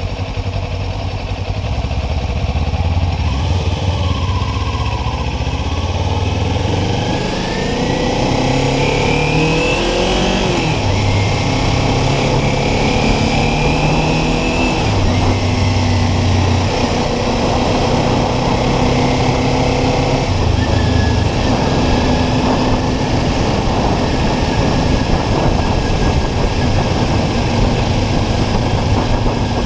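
Motorcycle engine under way on the road, with wind noise over the microphone. The revs climb and drop with several gear changes in the first half, then settle to a mostly steady cruise.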